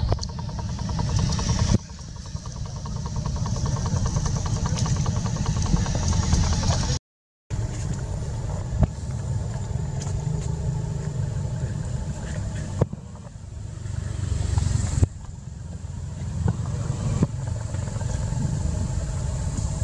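Wind buffeting the microphone: a heavy, uneven low rumble with a faint high steady whine above it. The sound changes abruptly several times and drops out for half a second about seven seconds in.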